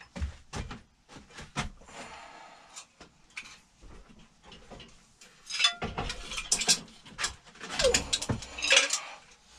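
Metal clanks and clinks from a Predator 420 engine being worked loose from its steel mounting plate and lifted off. A few light knocks come first, then a louder, denser run of clanking from about halfway through as the engine comes free.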